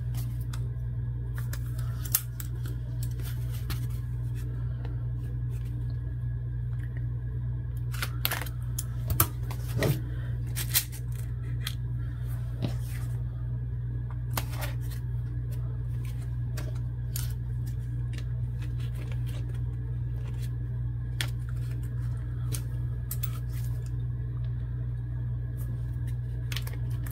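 Scattered small clicks and snaps of metal eyelet-setting pliers and a paper tag being handled while an eyelet is set, the loudest few about 8 to 11 seconds in, over a steady low hum.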